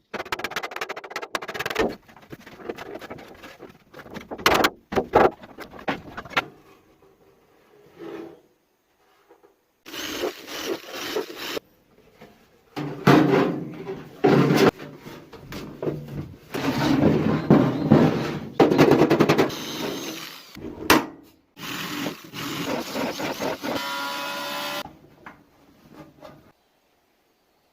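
Metalworking on a thin steel can in a string of short takes: rattling and scraping tool noise, metal clatter, and near the end a whine that rises in pitch like a power tool spinning up. Each take stops abruptly.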